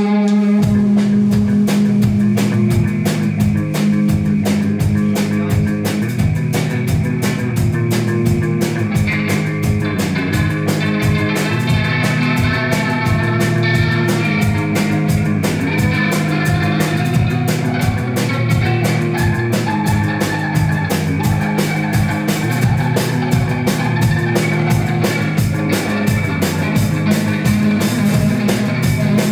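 Rock band playing live: electric guitar, bass guitar and drum kit, with a fast steady drum beat under sustained bass notes and guitar lines.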